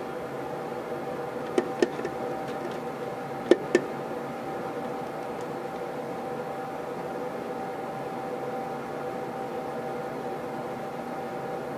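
Keisei AE100 express train running, heard from inside the passenger car: a steady rumble with a steady hum, and the weak air-conditioning blower running faintly. Two pairs of sharp wheel clacks, like axles crossing rail joints, come about a second and a half in and again about three and a half seconds in.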